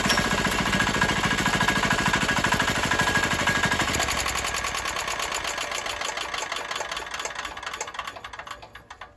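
Chinese 196cc single-cylinder diesel engine running with a rapid, even beat. About four seconds in it loses power and slowly spins down to a stop, shut off with the decompression lever, which lets combustion gases blow back into the intake and air filter.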